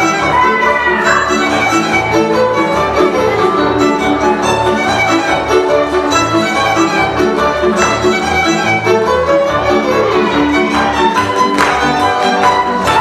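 Live Hungarian folk band playing a Bukovina csárdás dance tune: fiddles carry the melody over a bowed double bass keeping an even pulse.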